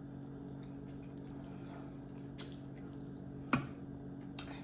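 Three short, sharp wet clicks of someone eating, about a second apart, over a steady low hum.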